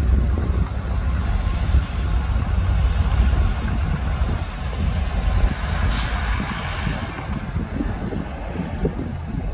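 Heavy diesel earthmoving machinery running with a steady low rumble, easing a little after about five seconds; about six seconds in there is a sharp hiss of released air, like a truck's air brake.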